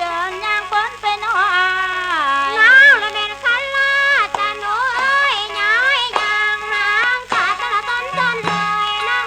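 Mor lam singing: a voice sliding and bending through an ornamented melody over the steady drone of a khaen ensemble, with a constant low hum under it from an old 78 rpm shellac record.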